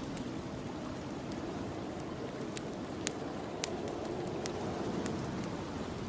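Snowstorm wind blowing steadily, with the fire in a fireplace crackling and popping now and then over it.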